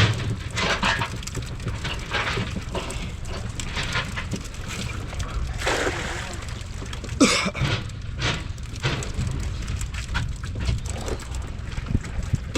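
Water splashing and dripping in an irregular patter, with one louder, sharper sound about seven seconds in.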